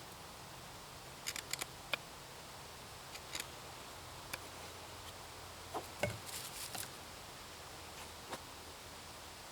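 Handling noise: scattered light clicks and taps, with a quick cluster of them about six seconds in, over a low steady background.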